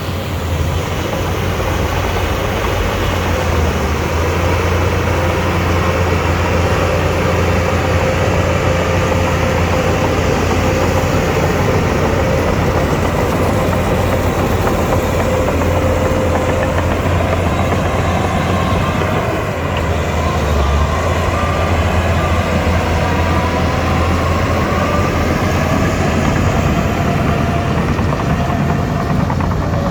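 Shantui DH17-C2 crawler bulldozer working: its diesel engine runs with a steady deep drone, over which a whine wavers in pitch.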